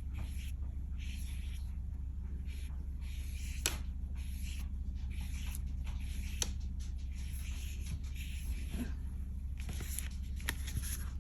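Paintbrush stroking watercolour paint onto paper: soft brushing sounds repeated every second or so, in up-and-down strokes, with a few light sharp taps. A steady low hum runs underneath.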